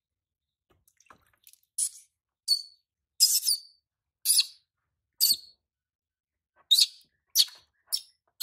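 A baby macaque giving a run of short, high-pitched squeals, about nine of them spaced roughly half a second to a second apart, starting a couple of seconds in, protesting at being bathed.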